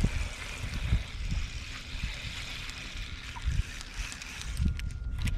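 Wind buffeting the microphone in uneven gusts over a steady hiss, with a few sharp clicks near the end.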